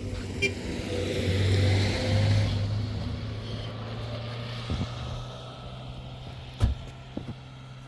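A motor running steadily with a low hum, its rushing noise swelling louder for about two seconds near the start and then settling. A single sharp knock comes near the end.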